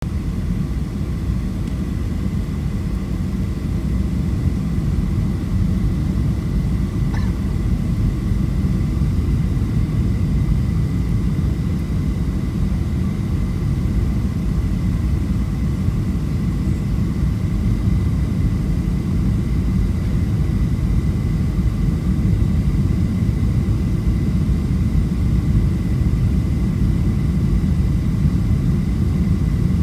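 Steady cabin rumble inside a Boeing 737 on approach to landing, engine and airflow noise heard from a window seat over the wing, with a thin steady whine above it. It grows slightly louder in the second half.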